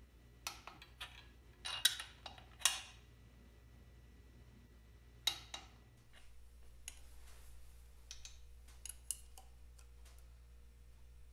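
Irregular metallic clicking from a ratchet wrench on a cylinder head nut, sharp clicks clustered in the first three seconds. Lighter scattered clinks of a spanner on a pushrod tube nut follow in the second half.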